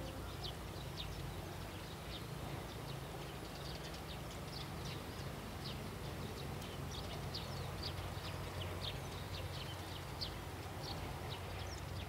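Faint outdoor ambience: many short, high chirps from small animals scattered irregularly through it, over a low steady hum.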